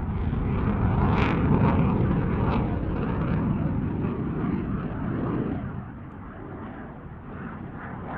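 Eurofighter Typhoon's jet engines rumbling loudly with crackle, then dropping away about five seconds in as the jet moves off.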